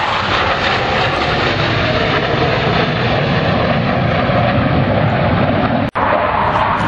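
Jet engines of Blue Angels F/A-18 Hornets flying over, a steady loud roar. The sound drops out for an instant a little before six seconds in, at a cut, and the roar resumes.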